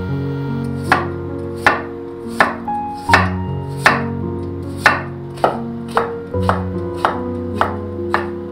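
Kitchen knife slicing a carrot into thin strips on a wooden cutting board: about a dozen sharp knocks of the blade on the board, a little more than one a second, starting about a second in. Background music plays underneath.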